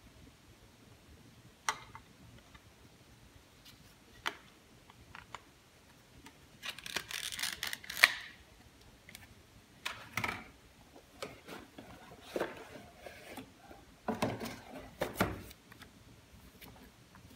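Clear plastic clamshell packaging of a processor being handled: a few isolated clicks, then several stretches of crinkling plastic with a sharp snap about eight seconds in, and paper rustling near the end.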